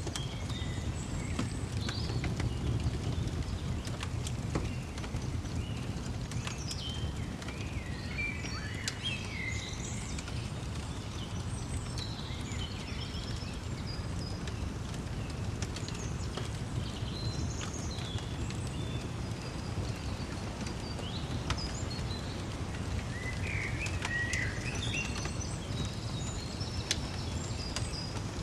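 Birdsong ambience: scattered short chirps and whistled calls from several birds, over a steady low rumble with occasional faint crackles.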